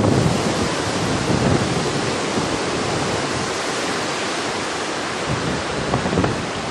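Strong wind blowing across the camera microphone: a steady rushing noise, with heavier low buffeting at the very start that eases off within the first second.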